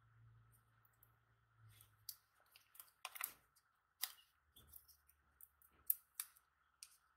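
Faint, scattered clicks and rustles of gloved hands handling a small plastic ointment jar, pressing a paper label onto it, with the sharpest clicks about three, four and six seconds in.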